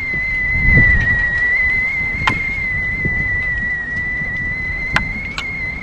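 Whistling tea kettle on the boil, giving one steady high whistle that wavers slightly in pitch. A low rumble of wind on the microphone lies under it, with a few sharp clicks.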